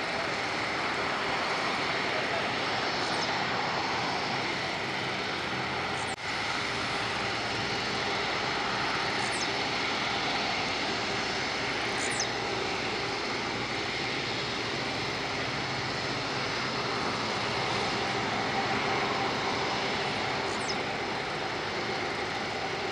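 Airbus A330-200F freighter's twin jet engines running at low taxi thrust as it turns on the runway: a steady jet rush with a faint whine.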